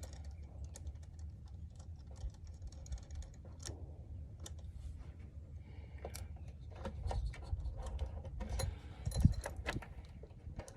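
Irregular metallic clicks and clinks of a hand tool tightening a new heavy-duty battery terminal clamp onto the battery post, busier in the second half, with one louder knock near the end.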